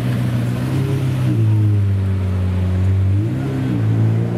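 Car engine running at low revs with a deep, steady note. The note drops lower about a second in, then rises and falls back in a short blip of revs near the end.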